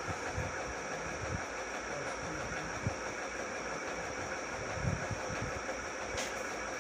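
Steady mechanical hum of a running machine, with a thin high whine and a few soft low bumps.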